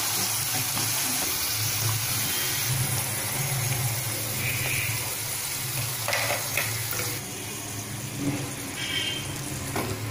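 Bitter gourd slices deep-frying in hot oil: a steady sizzle, with a few light scrapes and taps of a slotted spatula on the kadai as slices are lifted out. The sizzle eases a little about seven seconds in.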